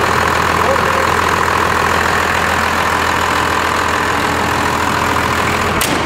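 Cummins diesel engine idling steadily in a Chevy pickup, heard through its 5-inch exhaust. A single sharp click comes just before the end.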